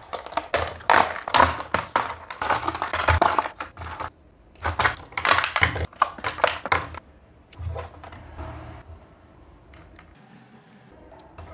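Clear hard-plastic blister packaging crinkled and torn open by hand: dense crackling and clicking with a short break about four seconds in. It thins to a few light clicks of small plastic and metal parts being handled near the end.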